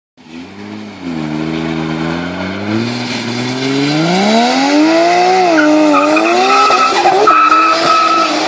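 Tuned turbocharged car engine revving, its pitch climbing steadily for a few seconds and then wavering and dipping. A high steady whistle from the turbo joins about halfway through.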